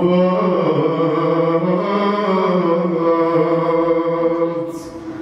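A man singing solo into a microphone, holding long, wavering notes. He takes a quick breath near the end.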